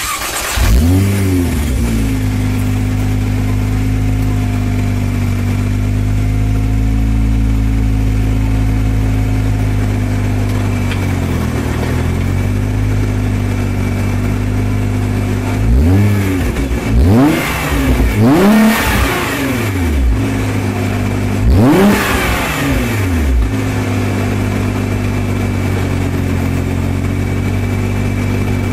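Nissan GT-R R35's twin-turbo 3.8-litre V6 exhaust at a cold start: the engine catches with a short flare of revs and settles into a steady idle. Just past the halfway point it is free-revved four times in quick succession, each blip rising and dropping back, before returning to idle.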